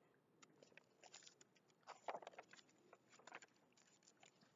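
Faint, irregular rustling and light clicks of a large picture book's pages being turned and handled.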